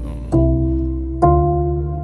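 Background music: held chords over a deep bass, with a new chord struck about a third of a second in and again a little past one second, each fading away.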